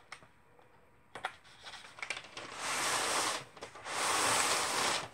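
Hand rubbing across kraft-paper backing: a few light taps and scrapes, then two long papery rubbing strokes of about a second each.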